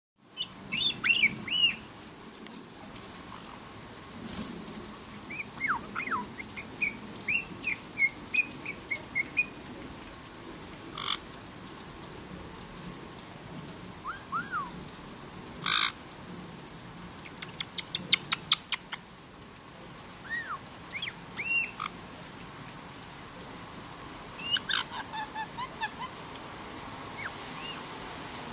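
Black-headed caique chattering in scattered bursts: short arched chirps and whistles, a couple of sharp squawks, and quick runs of clicking notes.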